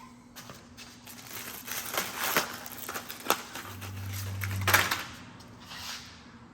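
Hands fitting a welding rod into a handheld stick welder's quick-change holder: a run of clicks, scrapes and rustling, loudest from about two to five seconds in, with a brief low hum near the middle.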